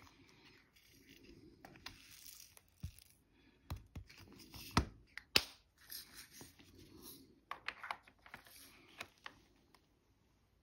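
Faint scattered clicks and short rustles of plastic from handling diamond painting supplies, with a few sharper taps in the middle.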